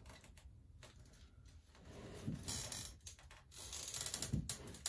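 Small metallic clicks and rattles of hand tools working at a motorcycle's oil drain, then two longer bursts of crinkling and scraping from the aluminium-foil drain chute being handled, about two seconds in and again near the end.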